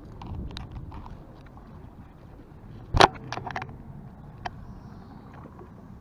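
Heavy rain and wind noise on a body-worn camera's microphone, with scattered raindrop taps and one sharp knock about three seconds in.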